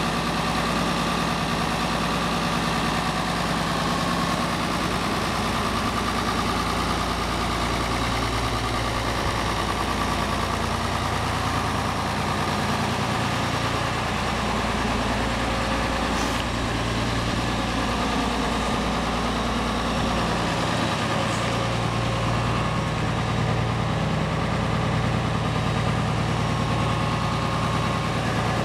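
Farmall 1206's six-cylinder diesel engine idling steadily.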